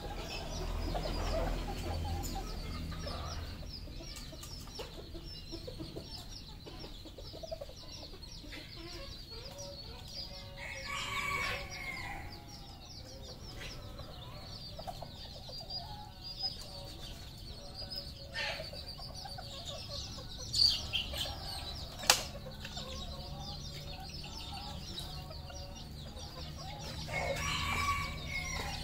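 Red junglefowl clucking and calling, with a rooster crowing twice: once about a third of the way in and once near the end. Two sharp knocks come about two-thirds of the way through, over a steady high chirping.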